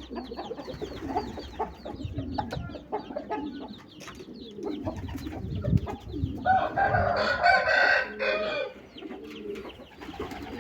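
Aseel chickens: young birds cheeping and clucking in short high calls, then a rooster crowing once, about two seconds long, past the middle.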